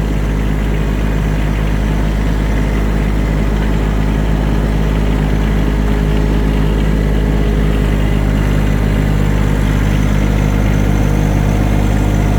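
Tractor engine running steadily at low speed as the tractor is driven slowly along.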